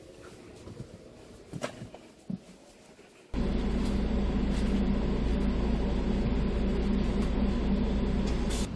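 Parked coach bus idling, heard from the front seat inside the cabin: a steady low engine hum with a droning tone that starts abruptly about three seconds in. Before it, only a few faint knocks.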